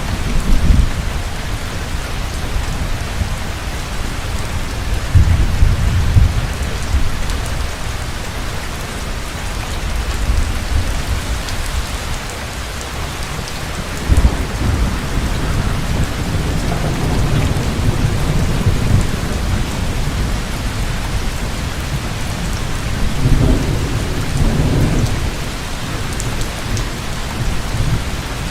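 Heavy rain falling steadily, with low thunder rumbling and rolling several times through it.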